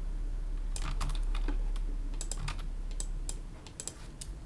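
Irregular light clicks and taps from computer input at a desk, about a dozen spread unevenly after the first second, over a steady low hum.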